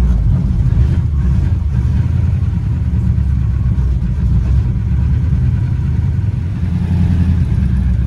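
Vintage Ford car's engine running, heard from inside the cabin as a steady low rumble.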